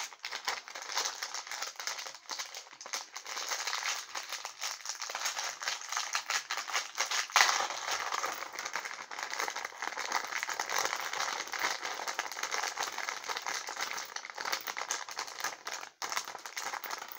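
Plastic bags crinkling and small Lego pieces rattling as hands sort through the parts: a steady crackle of many small clicks, loudest about seven seconds in.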